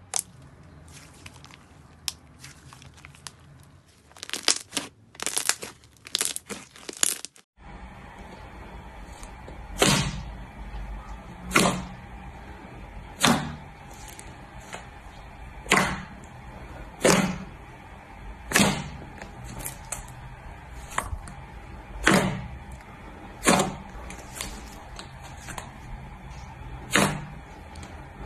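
Slime being kneaded by hand, with scattered clicks and a cluster of crackles. Then a hand pressing into a large tub of thick white slime, giving loud pops about every second and a half.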